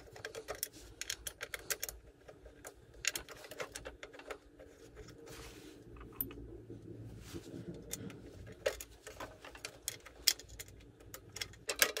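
Irregular small metallic clicks and rattles of hex nuts being handled and spun finger-tight onto the studs that hold a snowblower engine's sheet-metal shroud.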